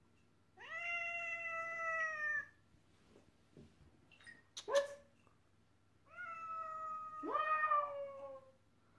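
Black-and-white tuxedo cat meowing: two long, drawn-out meows, each a few seconds apart and falling slightly in pitch, with a short sharp sound between them about halfway through.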